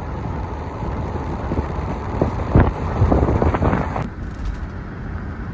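Car on the move: steady road and wind noise, with a few knocks and rattles in the middle.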